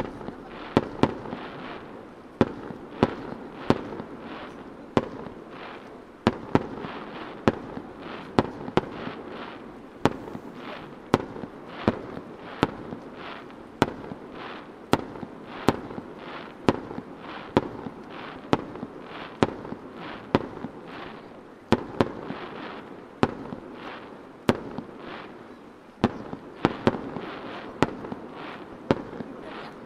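Aerial firework shells launched and bursting in quick succession, a sharp bang about every half second to second over a steady crackling noise that starts suddenly with the first burst.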